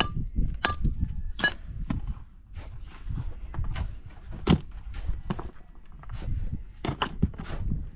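A run of irregular sharp knocks and clatters, a few of them louder, over a steady low rumble.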